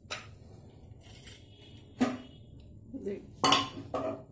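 A few short, separate clinks and knocks of a pressure cooker being handled: the opened lid set aside, then a spoon going into the thick cooked khichdi in the pot.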